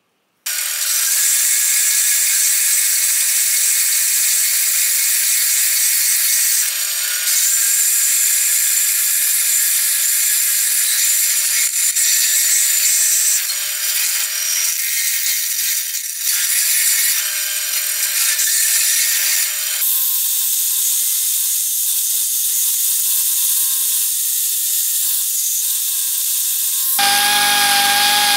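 Bench belt sander grinding a steel socket held against the belt: a loud, steady grinding hiss that changes in tone a few times as the work shifts. About a second before the end it gives way to a handheld rotary tool with a burr, starting up with a motor hum.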